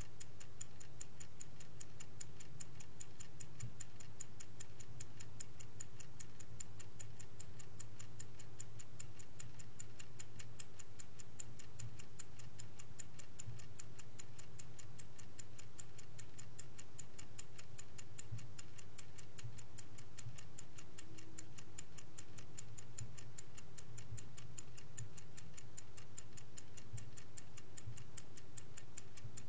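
Vintage Swiss-made Angelus clock's mechanical movement ticking steadily and evenly, over a faint low hum.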